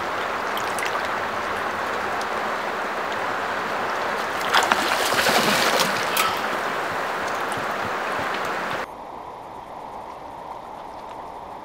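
Swift river water rushing steadily past a rocky bank, with a hooked silver salmon splashing at the surface for a couple of seconds about halfway through. Near the end the rushing drops suddenly to a quieter, duller sound.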